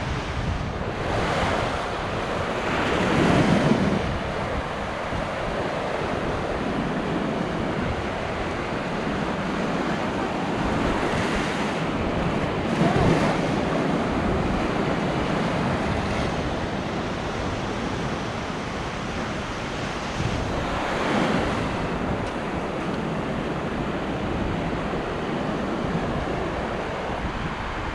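Ocean waves breaking and washing up a sandy beach, with a few louder wave crashes among the steady surf, and wind buffeting the microphone.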